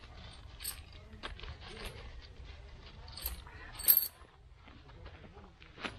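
Camping gear being handled by hand: rustling and light knocks with several small metallic clinks, the loudest and sharpest clink about four seconds in.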